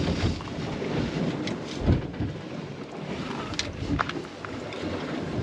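Wind buffeting the microphone on an open boat, a low rumbling rush, with a low thud about two seconds in and a few sharp clicks or knocks near the end.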